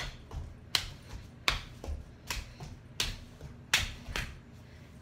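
Sharp hand claps from a cheerleader performing her routine without chanting, keeping a steady beat of about one every three-quarters of a second, with a dull thud under some of them.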